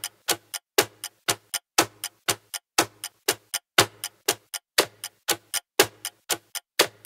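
Quiz countdown timer sound effect: a fast clock-like ticking, about four ticks a second, with a louder, deeper tick once every second.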